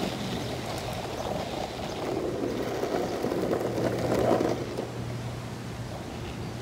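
Longboard wheels rolling on an asphalt path, a steady rumble that swells for a moment a little past halfway as the board leans into a carving turn.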